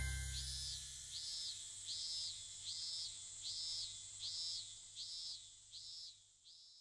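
The tail of a glockenspiel-like music track fades out. It gives way to faint, evenly spaced high chirps like a cricket's, a little over one a second.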